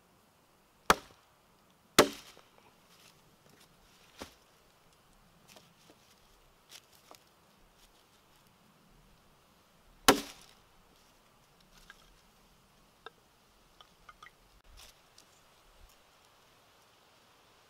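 A knife chopping into and splitting sticks of wood against a log: three sharp cracks, about one, two and ten seconds in, with a smaller knock near four seconds and light clicks and knocks of wood pieces afterwards.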